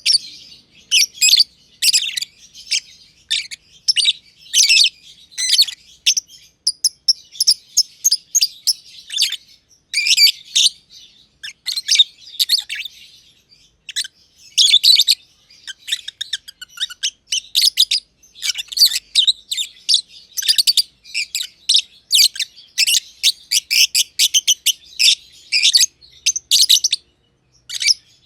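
Black-masked lovebirds (personata, green and green pied) chirping in quick runs of high, shrill calls with only short pauses.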